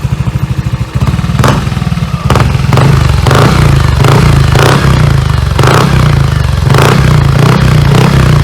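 Yamaha Aerox v2 scooter's single-cylinder four-stroke engine breathing through an MT8 aftermarket exhaust with a titanium tip. It idles with an even beat, then about a second in the revs step up and stay raised, with repeated sharp blips through the rest.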